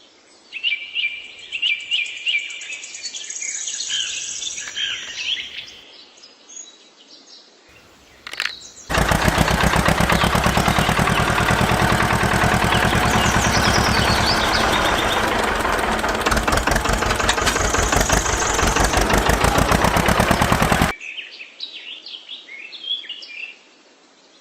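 Small birds chirping, then about nine seconds in a woodworking power tool's motor starts up loud and runs steadily for about twelve seconds before stopping, leaving the birds chirping again.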